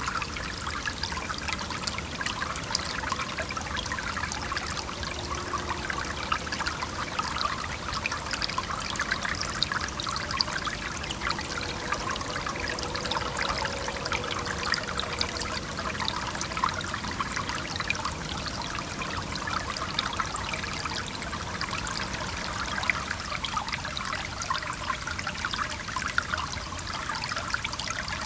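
A small stream running and splashing steadily, with a constant patter of many little splashes. A faint distant traffic rumble sits underneath.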